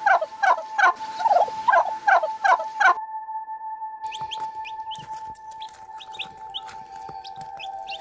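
Male wild turkey gobbling: a loud, rapid rattling run of descending notes, about three a second, that stops about three seconds in. Short high chirps follow.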